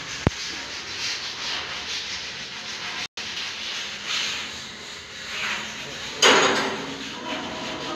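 Repeated rubbing and scraping strokes of hand work on steel door and window grilles being prepared and painted. There is a sharp click near the start, the sound breaks off for an instant about three seconds in, and a louder scrape comes about six seconds in.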